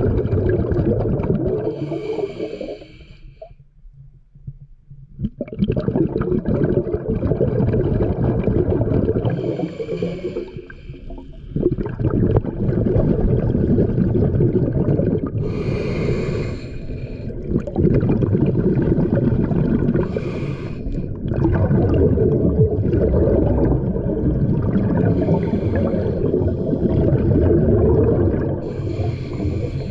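Scuba diver breathing through a regulator, heard underwater. A dense bubbling rumble of exhaled air is broken every several seconds by the higher hiss of an inhalation, with two short lulls between breaths.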